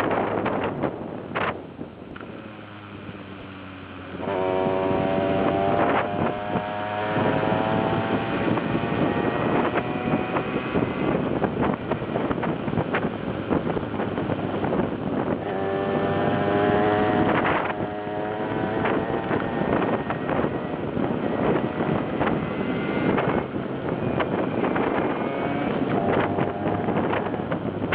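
Malaguti Fifty moped's 50cc two-stroke engine under way, with wind buffeting the microphone. It eases off about two seconds in, then revs rise as it pulls away about four seconds in and again near the middle.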